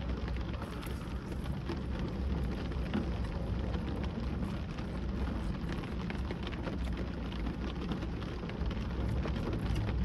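Rain falling on a car's roof and windows, heard from inside the cabin: many small drop ticks over a low steady hum.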